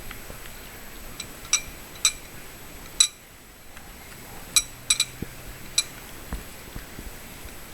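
A cat eating, with about eight sharp clicks and clinks at irregular intervals, bunched in the first half and again around the middle.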